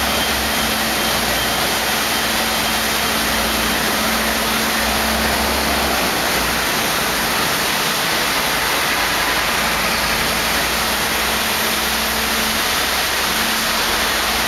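Heavy rain and wind in a storm: a steady, even rushing hiss with a low rumble underneath and a faint steady hum.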